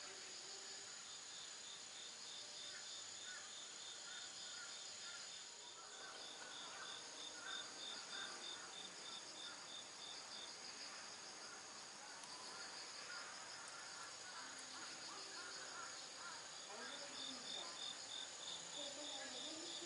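Faint insect chirping: a steady high-pitched trill with a regular pulsing chirp over it, which breaks off about halfway and comes back near the end.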